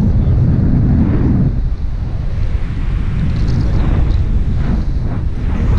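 Loud, steady low rush of wind buffeting a camera microphone carried in flight under a tandem paraglider.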